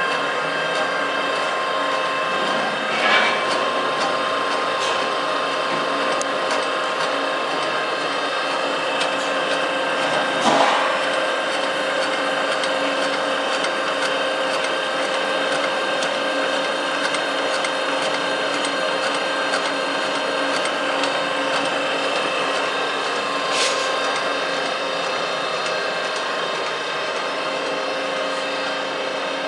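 Food-production powder-sprinkling machine running with cake flour: a steady motor hum carrying several held whining tones, broken by a brief knock about three seconds in, a louder one around ten seconds, and a lighter one near the end.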